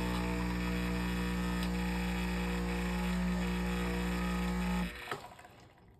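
Breville Dual Boiler espresso machine running with a loud, steady hum, the sound its owner finds strange. The hum cuts off abruptly about five seconds in, followed by a single click.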